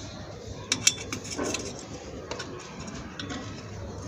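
A screwdriver tip scraping marks onto brick through the holes of a steel dish-mount bracket, with the metal bracket clicking and knocking lightly against the wall; a few sharp clicks come about a second in.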